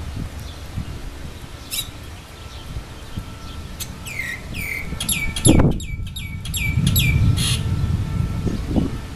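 A bird calling in a quick run of about eight high calls, each sliding steeply down in pitch, over a steady low rumble. A dull thump about halfway through is the loudest sound.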